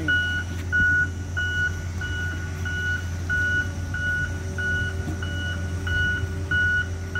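Log skidder's backup alarm beeping steadily, about one and a half beeps a second, over the low running of its diesel engine as it reverses, dragging a stuck pickup truck out of the mud.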